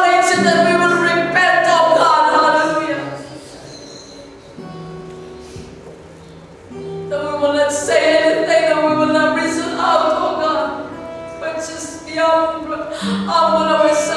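A woman singing a worship song with long held notes, going quiet for a few seconds in the middle before singing out again.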